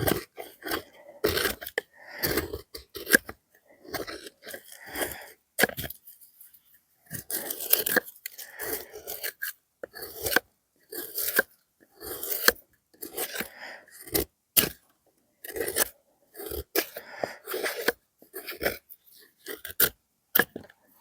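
Folding knife's steel blade carving and shaving very hard, dry seasoned hardwood: repeated short scraping strokes, about one or two a second, with brief pauses between.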